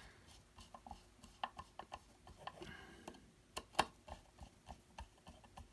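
Faint, irregular clicks and ticks of a small screwdriver turning small screws into a folding knife's handle, with metal parts lightly knocking; one sharper click a little before four seconds in.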